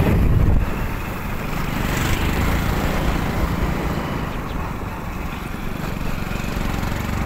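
A small two-wheeler engine running as it rides along, under a heavy low rumble of wind on the microphone.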